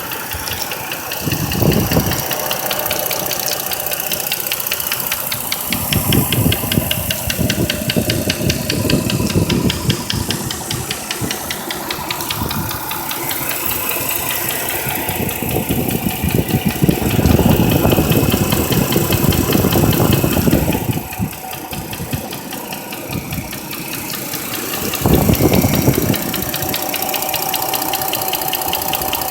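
Chrysler 300C engine running slightly warm, at about 50 °C, with a rapid regular knock, growing louder in several stretches.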